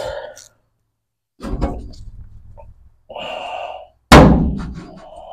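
A dull knock about a second and a half in, a short rasping noise, then a loud thunk near the end that rings on briefly.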